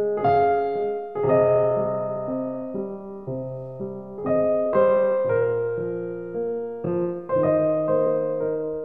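Slow piano ballad introduction: chords struck one after another, each ringing and fading before the next.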